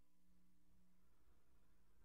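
Near silence: a pause in a recorded Quran recitation.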